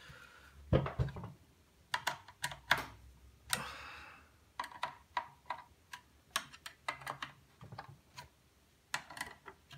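Irregular light metallic clicks and taps as a hand screwdriver snugs up the screws holding thin aluminium brackets to a pair of 12 V switching power supply cases, which are being handled. There is a short scraping rub about three and a half seconds in.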